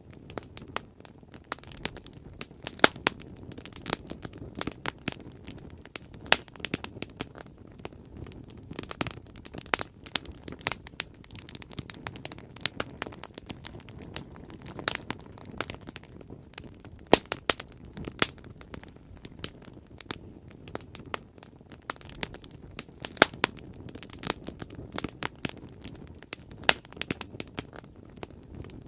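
Bonfire burning: irregular sharp crackles and pops, a louder pop every second or two, over a low steady rush.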